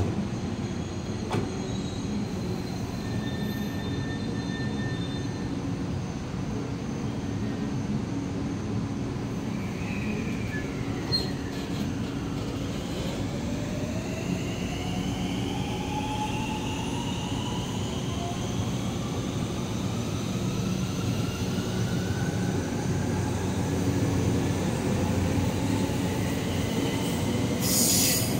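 Thunderbird limited express electric train pulling away from the platform: a steady low hum at first, then from about ten seconds in the traction motors whine in several rising tones as it picks up speed.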